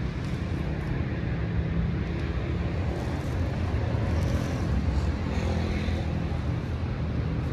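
Steady low rumble of distant road traffic, with no sudden sounds standing out.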